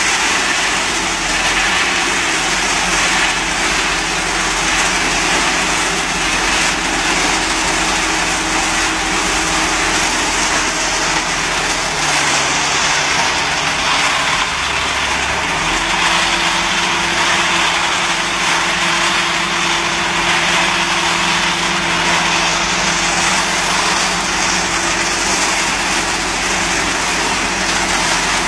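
Weichai 4105 turbo diesel of a self-loading concrete mixer running while the hydraulic loading arm raises and tips a bucket of gravel into the drum, over a steady hiss. The engine tone shifts in pitch about halfway through.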